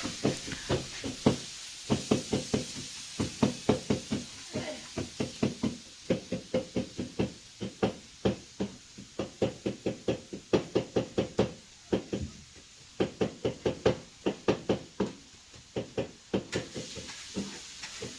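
Knife chopping on a cutting board: runs of quick knocks, about three or four a second, broken by short pauses.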